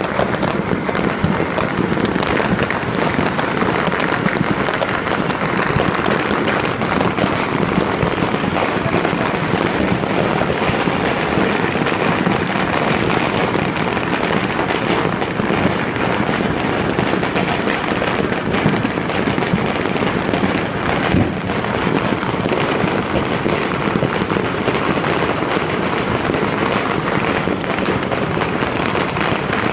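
Many fireworks and firecrackers going off across a city at once, a continuous dense crackling and popping with no pauses and no single bang standing out.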